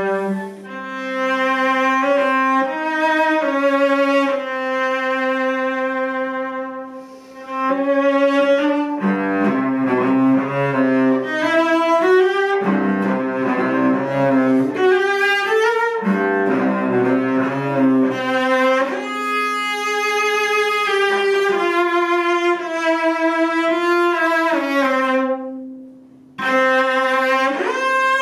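Solo cello played with the bow: sustained, gliding notes, with a middle stretch where two or more notes sound at once. The playing breaks off briefly near the end, then resumes.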